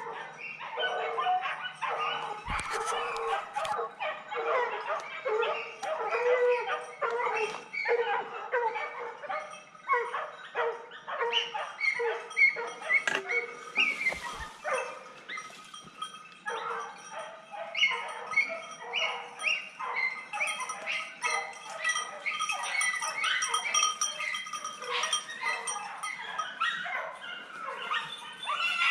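Jagdterriers giving tongue as they hunt wild boar: continuous, overlapping yapping barks from several dogs, with a brief lull about sixteen seconds in.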